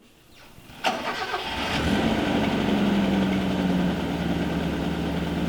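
A car engine starting: a short build-up, catching suddenly just under a second in, then settling into a steady idle.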